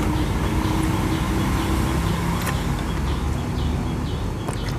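Steady low rumble of a motor engine running, with a few light clicks.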